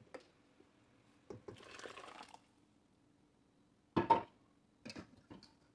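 Ground masala paste being poured into a pot of simmering curry: a brief wet pour about a second and a half in. A utensil knocks sharply against the pot or bowl about four seconds in, then taps lightly twice near the end.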